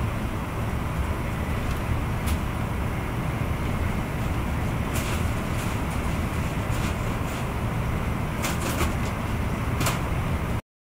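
Steady rumble of a Renfe AVE S-102 (Talgo 350) high-speed train running at speed, heard from inside the passenger car, with a few short sharp ticks scattered through it. It cuts off abruptly near the end.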